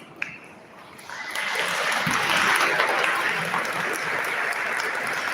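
Audience applause, starting about a second in and then holding steady.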